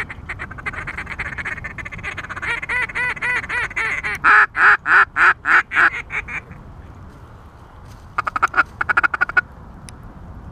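Mallard quacking on a duck call: a fast string of quacks that builds to about six loud, drawn-out quacks falling in pitch. After a pause comes a quick run of short notes near the end, a hail call followed by a feeding chatter to bring in passing mallards.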